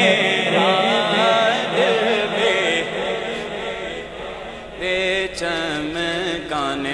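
A solo voice chanting a long, wavering melismatic line of Urdu devotional verse over a steady held drone. The voice eases off a little past the middle, then a new phrase comes in.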